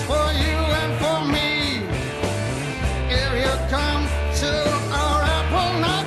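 Late-1960s rock band playing: electric guitars over a steady bass line and a drum kit.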